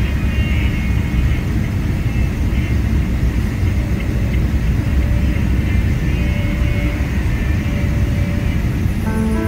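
A loud, steady low rumble of outdoor noise with no clear rhythm, with a few faint high tones near the start.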